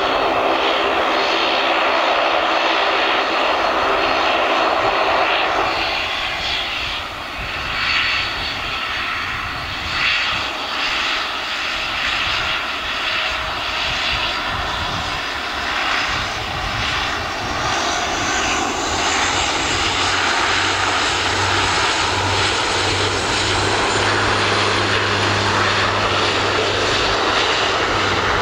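Dash 8 Q400 turboprop (Pratt & Whitney Canada PW150 engines, six-bladed propellers) running while it taxis, a propeller hum with several steady tones at first. From about twenty seconds in, a steady low drone joins as power comes up for the take-off roll.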